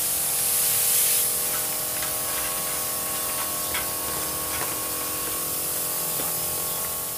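Tank sprayer's wand nozzle spraying a fine mist of liquid fertilizer onto tree leaves: a steady hiss, with a steady hum underneath.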